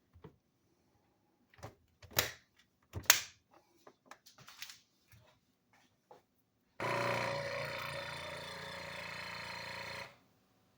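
Several clicks and knocks of the Geryon vacuum sealer being handled and closed, then its small pump motor runs steadily for about three seconds and cuts off abruptly. The sealer is failing to pull a vacuum and only seals the bag, by the owner's account.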